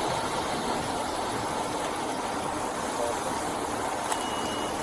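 Steady rushing background noise with a faint low hum, and a short, faint high beep near the end.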